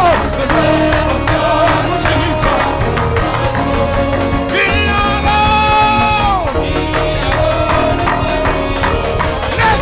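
Worship music: a solo voice sings long held notes over a sustained instrumental backing, one note held for about a second and a half before falling away.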